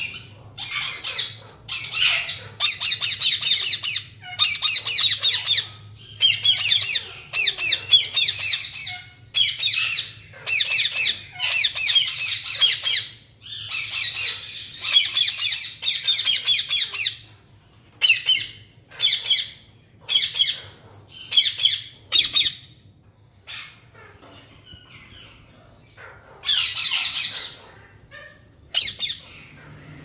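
Lutino Indian ringneck parakeet squawking: rapid strings of harsh, high calls, nearly continuous for the first half, then shorter separate bursts with pauses between them.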